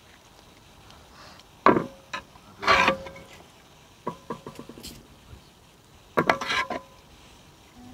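Steel ladle clinking and scraping in a metal cooking pot as curry is scooped out and served, with a run of small clicks around the middle. A few brief voices cut in, the loudest events.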